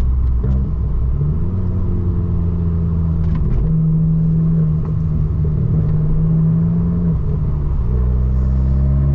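Abarth 595 Turismo's turbocharged 1.4-litre four-cylinder engine and exhaust while driving, a steady engine note that steps up and down in pitch several times as the revs change.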